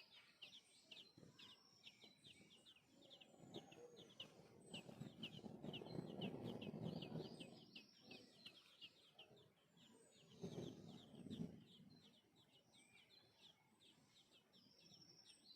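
Young birds chirping without pause, short high peeps several times a second, typical of chicks calling to be fed. A low muffled noise swells up in the middle and again briefly later.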